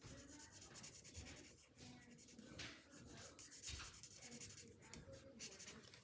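Faint scratching and rubbing of a marker tip colouring on cardstock, in short irregular strokes.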